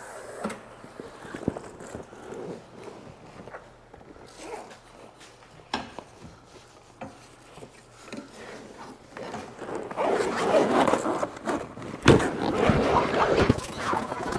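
Canvas soft-top fabric rustling and scraping as it is handled and pulled over a Jeep's top frame, with a few light clicks. The rustling grows much louder from about ten seconds in, with a sharp knock about two seconds later.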